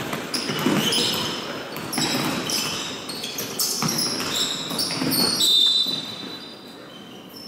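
Basketball game play: a basketball bouncing on the court several times, with sneakers squeaking in short high chirps. The play gets quieter after about six seconds.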